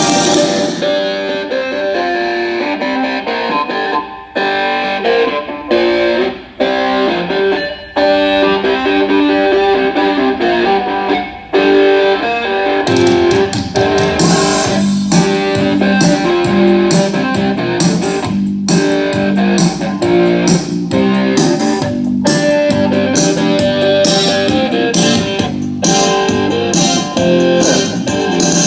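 Rock music with electric guitar played loud through a bagger motorcycle's aftermarket stereo: fairing speakers, lower and tour-pack mid-range speakers, and compression tweeters. Bass and drums come in about 13 seconds in.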